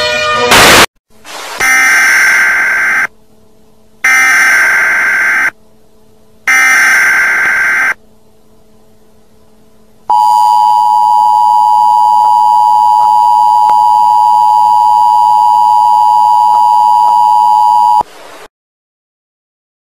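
Emergency Alert System tones: after a brief loud sound at the very start come three bursts of SAME header data tones, each about a second and a half long. Then the steady two-tone EAS attention signal runs for about eight seconds and cuts off suddenly.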